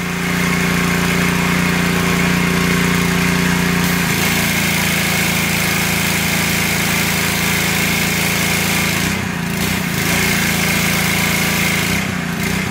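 Honda GX200 single-cylinder engine running a pressure washer pump; about four seconds in the spray gun is triggered and a high-pressure water jet hisses while the engine's note shifts under the pump's load, the spray breaking off briefly just after nine seconds and again near the end. The change in engine load is the freed unloader now cycling, a sign the pump is building pressure again.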